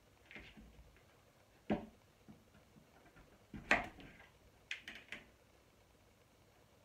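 Kitchen knife cutting through raw butternut squash and knocking on a plastic chopping board: two sharp knocks about two seconds apart, with lighter clicks and scraping of the squash pieces around them.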